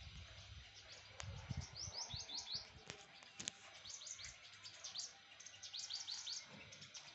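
Small garden birds chirping: three quick runs of high, downward-sweeping chirps, with a few sharp clicks between them.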